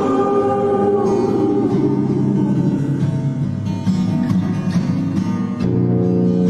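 Background music: an acoustic-guitar song in an instrumental passage between sung lines.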